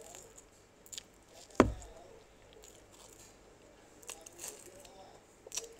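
Close-up mouth sounds of biting and chewing a soft roasted marshmallow, with small wet clicks throughout. A single sharp knock about a second and a half in is the loudest sound.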